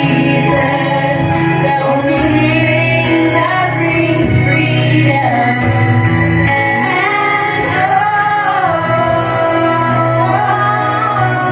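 Worship song with a woman singing over steady instrumental accompaniment.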